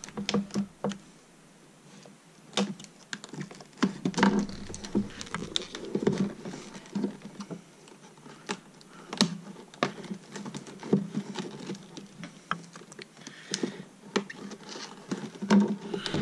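Stiff clear-plastic blister packaging being bent and pried open by hand, giving irregular crackles, clicks and creaks.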